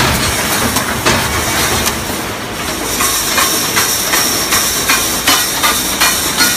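Wire mesh welding machine running: a steady mechanical clatter and hiss. From about halfway through, sharp knocks come about three times a second.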